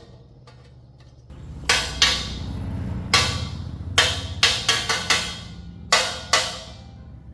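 A hammer striking metal in irregular, ringing blows, about nine in a row with gaps of a third of a second to a second, over a low steady rumble.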